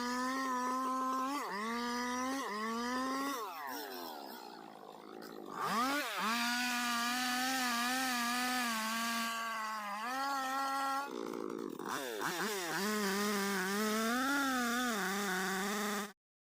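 Chainsaw engine running at high revs, its pitch dipping and recovering over and over as the chain bites into wood. About four seconds in the revs fall away toward idle, and near six seconds they snap back up for more cutting. They sag briefly again around eleven seconds, and the sound cuts off abruptly near the end.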